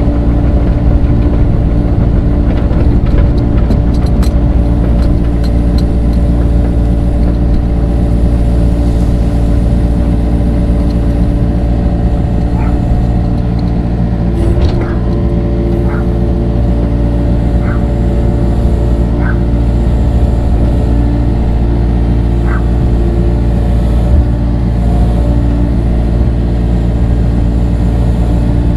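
Mini excavator engine running steadily under load while digging, with a few short clinks partway through.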